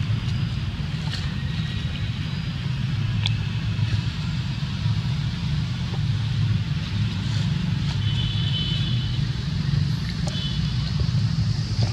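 A steady low rumble, with a few faint high chirps in the second half.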